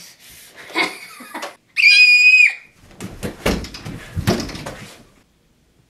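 A loud, high-pitched scream held for under a second, then about two seconds of thumps and scuffling as a kid scrambles over a leather couch.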